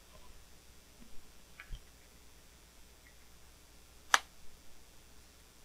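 Handling of small plastic accessories for a Nintendo Switch carrying case: a few faint clicks early, then one sharp click about four seconds in, followed by two softer ones.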